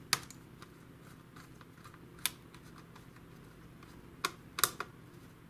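About five sharp, irregularly spaced clicks from a screwdriver loosening the captive screws that hold a Samsung laptop's heatsink to the motherboard, three of them close together near the end.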